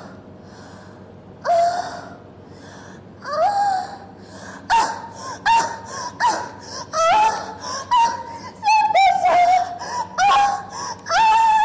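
A young woman's exaggerated, breathy moans of satisfaction ('Ahh!'). They come a few at a time at first, then louder and closer together from about halfway, ending with a cried 'Super shiok ah!'.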